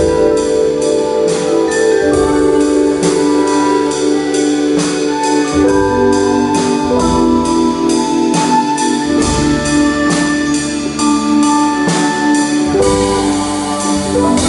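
Live band with strings playing: a drum kit keeps time with regular cymbal strokes about twice a second under long held string chords, with vibraphone, upright bass and acoustic guitar.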